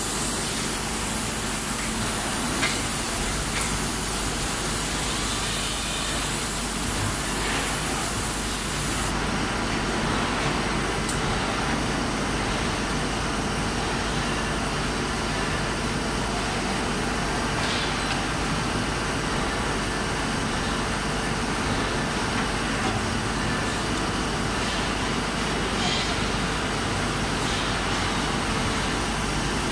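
Hot coil spring winding machine line running, a steady mechanical noise as a red-hot steel bar is fed along its roller conveyor. A high hiss sounds over it for about the first nine seconds, then cuts off suddenly.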